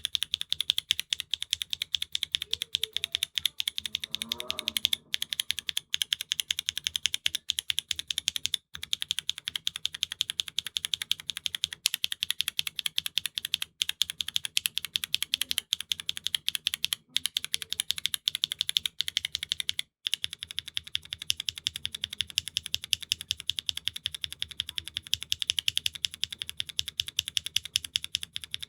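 Kailh Calligraphy R2 linear switches (MF stem, LCP housing) in a Neo65 Core Plus keyboard with GMK keycaps and an aluminium plate, keys spammed rapidly across the board in a fast, unbroken run of high-pitched clacks with a few short pauses. The clack is uneven from stroke to stroke, some keys clacking high and others dull, which the reviewer puts down to the switches' random inconsistency.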